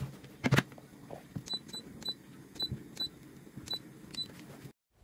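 Electric multicooker lid clunking shut, then about eight short high beeps from its control panel as its buttons are pressed to set the cooking time.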